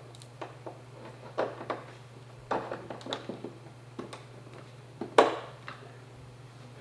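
About seven light clicks and knocks from an HDMI cable being handled and plugged into the back of a monitor, the sharpest about five seconds in. A steady low hum sits underneath.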